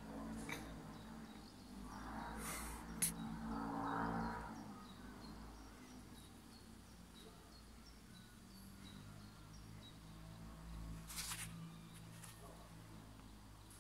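Roe buck sniffing at a hand, with a few short sniffs about two and a half seconds in and again near the end. Faint insect chirps tick about twice a second throughout.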